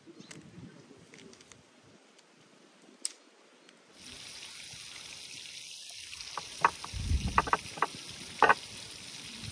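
Food being handled at a wooden tray of flour: faint clicks at first, then over a steady hiss a few sharp taps and a dull thump near the end, as fish are worked in the flour.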